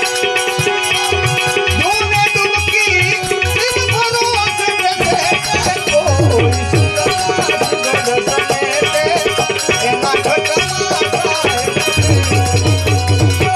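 Gujarati devotional bhajan music: a sustained melody over steady hand-drum percussion and a fast, even ticking beat.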